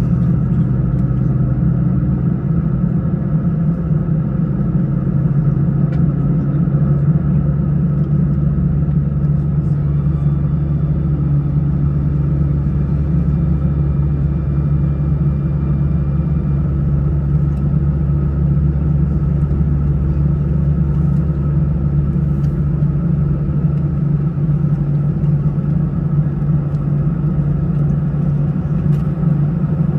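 Steady cabin noise inside an Airbus A319 airliner: a constant rumble of engines and airflow with a low hum, and a deeper rumble swelling in for a stretch in the middle.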